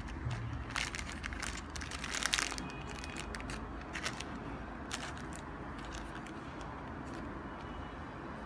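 Clear plastic zip bag of spare shoelaces crinkling as it is handled: a run of rustles in the first few seconds, then two more single crinkles around four and five seconds in, over steady background noise.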